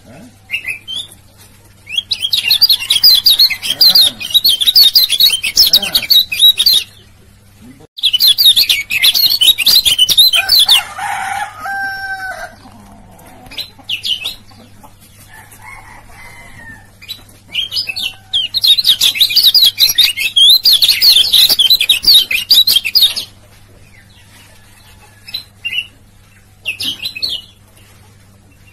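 Male yellow white-eye (kecial kuning) singing a rapid, high twittering 'ciak ciak' song in three long bursts of several seconds each, with short single calls in between. A brief lower-pitched call, from another bird, comes partway through.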